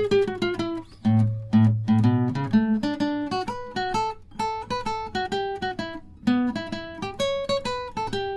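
Background music: acoustic guitar plucking a quick run of notes, with deeper bass notes about a second in.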